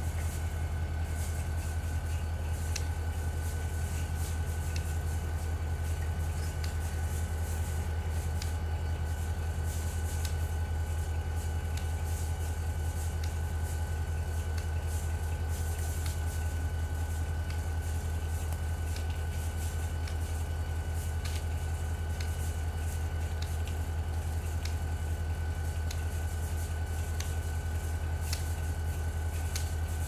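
Diesel-electric locomotive idling steadily: a constant low engine hum with a thin, steady high tone over it.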